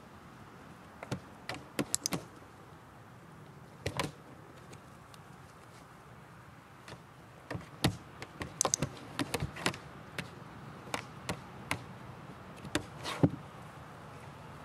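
Irregular sharp clicks and taps from a training clicker and a dog's paws knocking on a hard plastic paddling pool during clicker training. A few come early, then a dense run of them through the second half, the loudest near the end.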